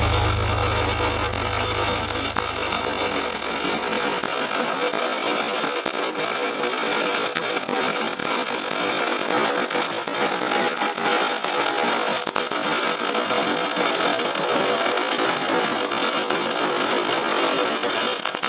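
MIG welding arc crackling steadily with a dense, even sputter. A low bass tone fades out over the first few seconds.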